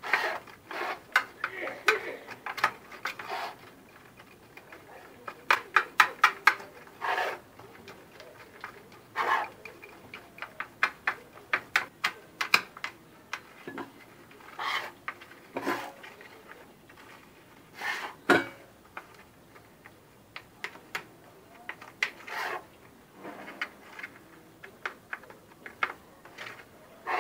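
A spoon tapping, clicking and scraping against a metal cake frame as a biscuit-crumb base is pressed flat into it: irregular sharp taps, sometimes in quick runs, with short scraping strokes between.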